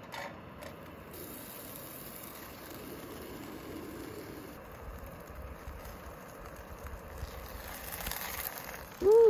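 MSR Pocket Rocket 2 canister stove burning with a steady hiss under a skillet. Near the end comes one brief, loud squeak whose pitch rises and then falls.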